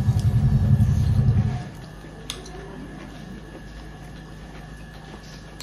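A loud low rumble that stops abruptly about one and a half seconds in. After it, faint eating sounds: hands working food on steel plates, with a small click.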